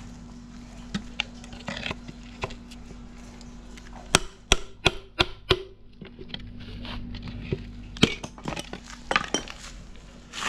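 Hand tools clinking and knocking against metal engine parts: a quick run of about five sharp knocks about four seconds in, and more scattered clinks near the end, over a steady low hum.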